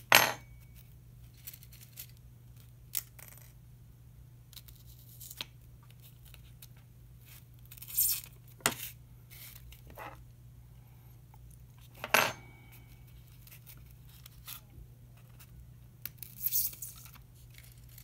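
Small handling sounds of insect pinning: scattered sharp metallic clicks of steel forceps and insect pins, and short rustles of the paper strips being pressed over the butterfly's wings on a spreading board.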